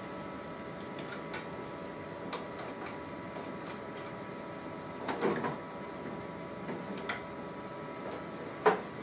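Plastic clicks and knocks as the heated roller assembly of a Zebra ZXP Series 8 laminator is unlatched and slid out: a small cluster about five seconds in and a sharper knock near the end. A steady hum from the powered printer runs underneath.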